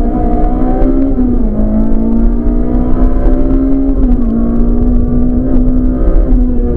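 Rally car engine heard from inside the cabin, running hard at high revs with a loud, steady note that dips briefly twice, about a second and a half in and again at about four seconds, before climbing again.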